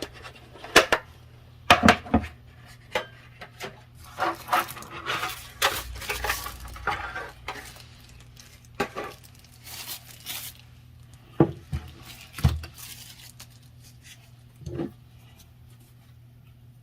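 Charger packaging being opened and handled: paper and plastic wrapping rustling and tearing, with scattered clicks and knocks from the boxes and plastic chargers being handled. There is a run of rustling from about four to seven seconds in, a shorter one around ten seconds, and a few sharp knocks later on.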